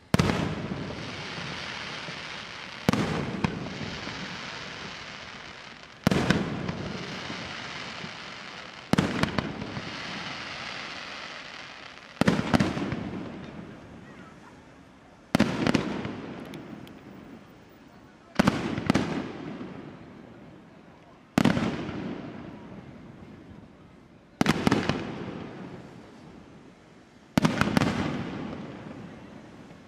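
Aerial firework shells bursting one after another, about every three seconds, ten in all. Each burst is a sharp bang followed by a rumbling echo that fades away before the next.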